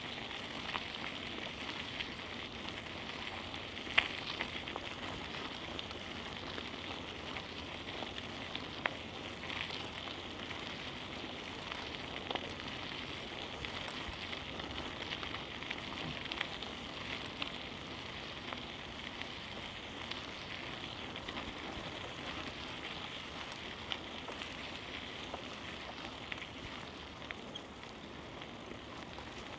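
Steady hiss of a bicycle rolling along a street, with scattered light clicks and one sharper click about four seconds in.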